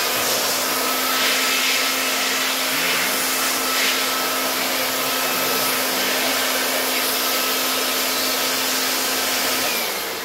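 Electric air blower running steadily as it blows dust out of a laptop, its motor whining down with a falling pitch near the end.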